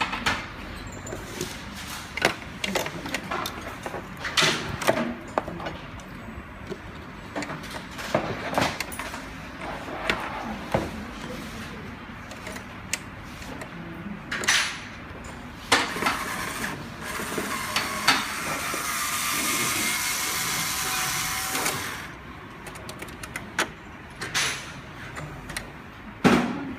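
Scattered clicks and knocks of tools and metal parts while a 3D printer's rod mounting is being unbolted, with a steady motor whir for about six seconds past the middle.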